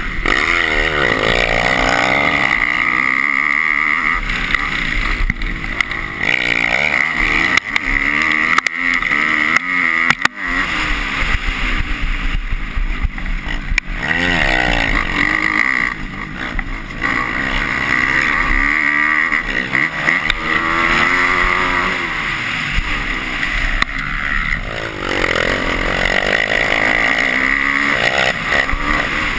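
250-class motocross bike engine at race pace, heard from the rider's own onboard GoPro: the engine revs up and eases off over and over through shifts, corners and jumps.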